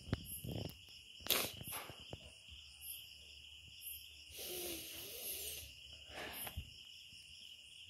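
A woman crying with her shirt pressed over her mouth: a muffled, wavering sob about halfway through, and a few knocks and rustles of handling, over a steady high-pitched drone of crickets.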